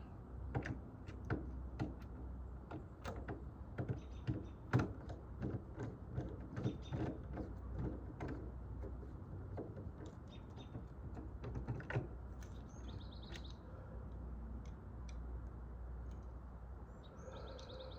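Irregular light clicks and knocks of hand work on a sliding door lock, thickest in the first twelve seconds, over a low steady rumble. A bird chirps a short trill twice in the second half.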